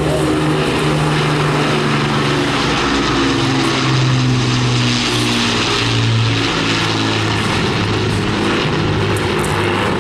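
Avro Lancaster's four Rolls-Royce Merlin piston engines droning in flight, a deep propeller drone of several tones. The drone grows loudest about halfway through as its pitch slides slightly lower while the bomber passes.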